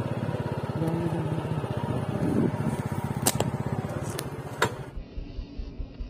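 Motorcycle engine running steadily while riding over a rough, muddy dirt track, with a few sharp knocks and rattles. The engine sound cuts off suddenly about five seconds in, leaving a much quieter outdoor background.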